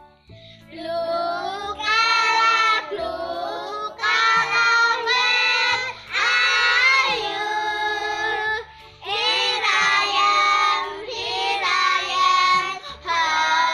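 A group of children singing together in phrases of a few seconds, with short breaks between them.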